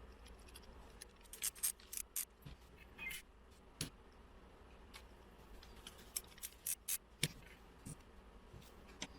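Small, irregular clicks and taps of soundbar parts being handled and fitted back together during reassembly, with quick runs of clicks about a second and a half in and again around six to seven seconds in, and a brief scrape near three seconds.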